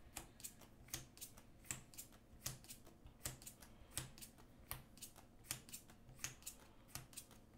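Magic: The Gathering cards being flicked one at a time from hand to hand while searching through a deck, a soft click about three or four times a second.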